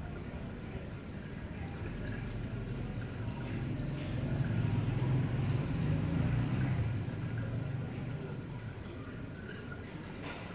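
Marine aquarium's water circulation: water running and trickling steadily with a low hum, the hum swelling for a few seconds in the middle.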